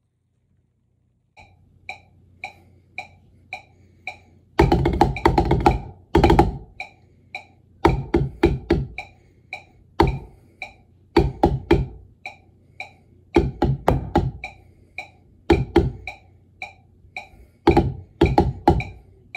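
A metronome clicks at 110 beats per minute, alone for about three seconds. Then drumsticks join in on a Vater rubber practice pad, playing bursts of fast strokes in time with the clicks, with short breaks where only the metronome is heard.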